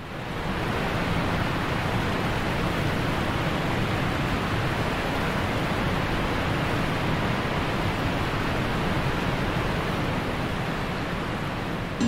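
Creek water rushing steadily, an even hiss that fades in over the first second.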